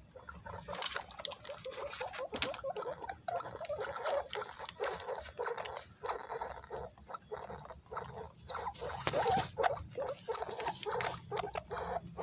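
Guinea pigs squeaking again and again in short calls while scrambling to eat banana, loudest about nine seconds in.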